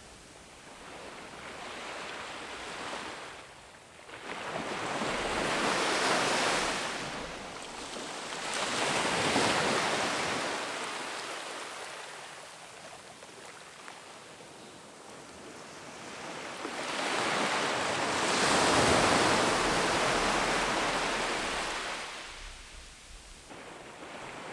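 Ocean waves breaking and washing up a sandy beach, the surf swelling and fading in slow surges, two big swells about ten seconds apart, with a little wind on the microphone.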